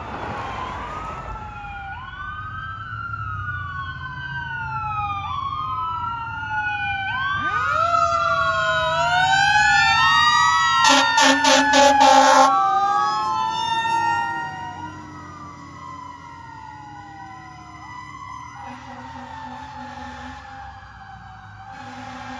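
Fire engine's siren wailing up and down, growing louder and then fading. An air horn gives a string of short blasts in the middle, at the loudest point.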